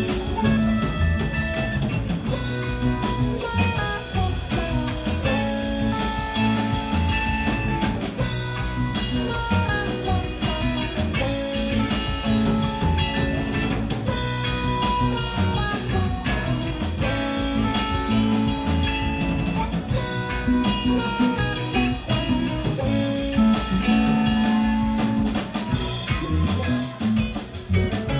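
Live rock band playing an instrumental passage: electric guitars, bass and keyboard over a drum kit, with a melodic lead line moving in stepped notes.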